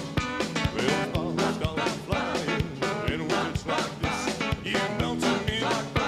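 Live band playing: a drum kit keeping a steady beat under electric and acoustic guitars, with a lead vocal singing over it.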